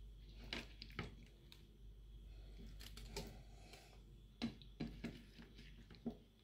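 Faint, scattered soft taps and clicks as chopped tomato pieces are tipped into a stainless steel pot and land on pieces of cow's foot.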